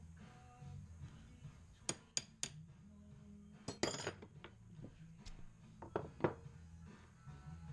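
Steel files clinking against each other and being set down on a workbench: a string of sharp metallic clicks, with a brief cluster of ringing clinks about four seconds in.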